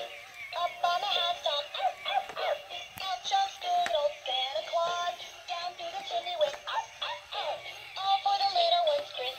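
Animated plush Christmas puppy toy singing a high, tinny song through its small built-in speaker, with a few sharp clicks mixed in.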